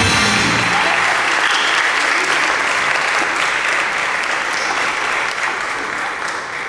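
Audience applauding as the music cuts off in the first second, the clapping gradually fading near the end.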